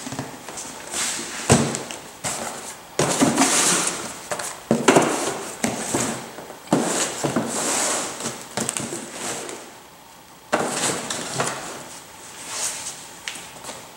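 Cardboard parts boxes being handled and slid into the drawers of a plastic storage cart: scuffing and rustling with a few sharp knocks, and short pauses between them.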